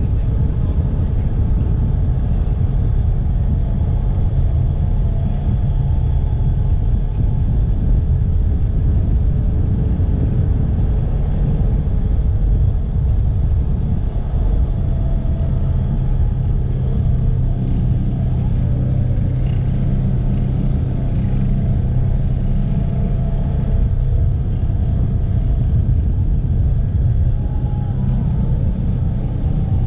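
Polaris Ranger 1000 side-by-side's engine running as it drives: a steady, loud low rumble.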